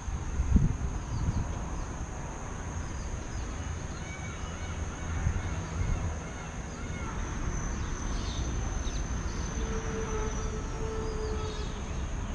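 Outdoor ambience: a steady high-pitched insect drone with scattered bird chirps over a low rumble, and a thump about half a second in.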